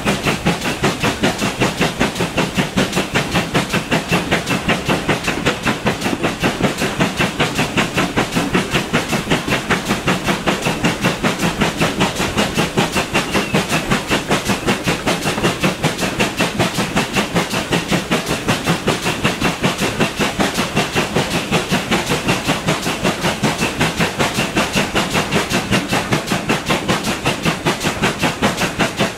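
GWR 4200 Class 2-8-0T steam tank engine no. 4247 working hard up a gradient. Its two-cylinder exhaust beats fast and evenly, about five beats a second, mixed with the clatter of carriage wheels on the rails, heard from a coach behind the engine.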